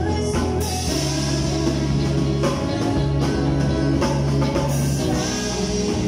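Live rock-style worship band playing a song, with a drum kit keeping time with cymbals under amplified guitars.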